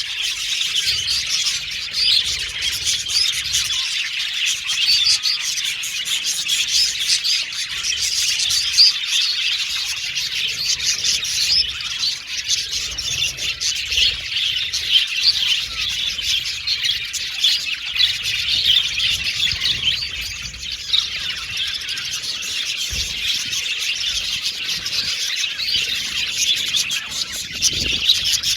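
A flock of budgerigars chirping and chattering together, a dense, continuous high twittering from many birds at once.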